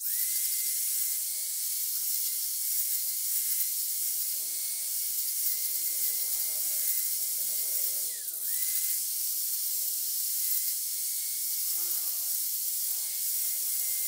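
Angle grinder running at speed against a small mild-steel bracket, grinding its weld bead: a steady high whine over loud grinding hiss. The pitch dips briefly about eight seconds in, then recovers.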